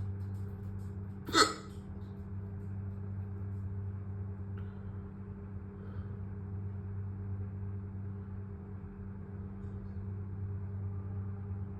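A single sharp hiccup about a second and a half in, over a steady low hum, with two much fainter short sounds later.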